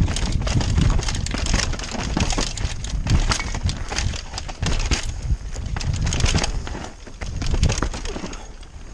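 Downhill mountain bike clattering over a rocky trail: tyres on rock and loose stones, with rapid, irregular knocks and rattles from the bike and a constant low rumble of wind on the microphone.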